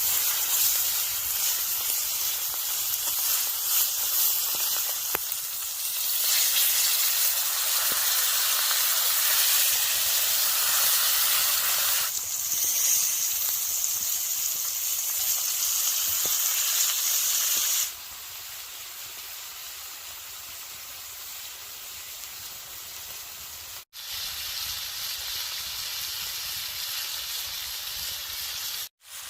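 Food sizzling and frying over a campfire, a steady hiss with occasional small crackles. The sound changes abruptly every few seconds and turns quieter about eighteen seconds in, with two very short dropouts near the end.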